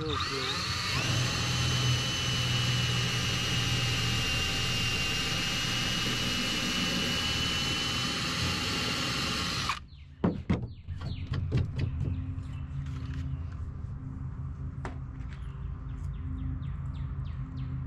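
Cordless drill spinning up and boring a new hole through a canoe gunwale into a block of sacrificial wood beneath, running steadily with a high whine, then stopping sharply about ten seconds in. A scatter of light clicks and knocks follows.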